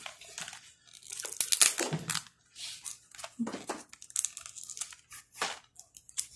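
Cardboard box of jelly beans being picked at and torn open by hand: irregular scratching, tearing and crinkling of the packaging, loudest about one and a half to two seconds in.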